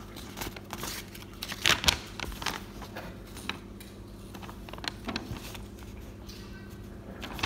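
A folded paper leaflet being unfolded and handled, rustling and crinkling in short bursts, loudest about two seconds in, over a steady low hum.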